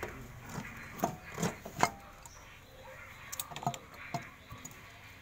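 Sharp metallic clicks and clunks, about half a dozen, as a Sonalika Tiger tractor's gear shift lever is worked by hand through its gears in the gearbox shift mechanism.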